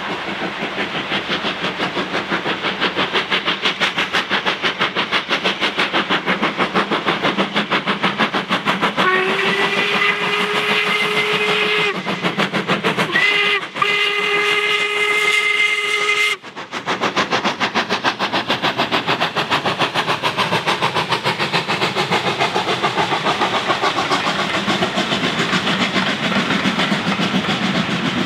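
LMS Jubilee 6P three-cylinder 4-6-0 steam locomotive No. 45596 'Bahamas' working hard with a train of coaches, its exhaust beats coming fast and even. Its whistle sounds about nine seconds in for around three seconds, then again after a brief break for about three seconds more, while the chuffing carries on as the coaches pass.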